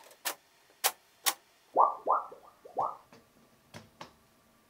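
Hands fitting PVC duct elbows into rubber couplings: three sharp clicks, then a quick run of four short squeaks of rubber on plastic. Near the end come two more light clicks as a small display module is pressed into a metal panel.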